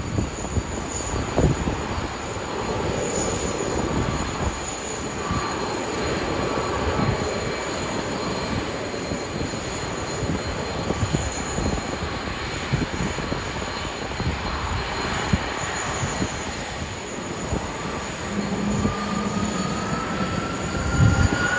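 Jet airliner engines running as it taxis, a steady rush with wind buffeting the microphone. A whine rises slowly in pitch over the last few seconds.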